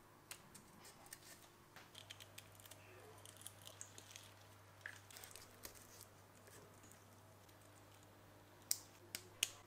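Faint handling noise of e-bike wiring: rustling and small clicks as the controller's cables and plastic plug connectors are handled, with a few sharper clicks near the end as a connector is pushed together.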